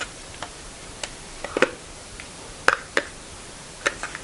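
Irregular light clicks and taps of a plastic LED lantern being handled, its end cap twisted and pulled as someone tries to open it.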